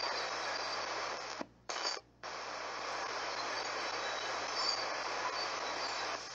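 Ghost box (spirit box) radio scanning through stations: a steady hiss of static that cuts out twice for a moment, about a second and a half and two seconds in.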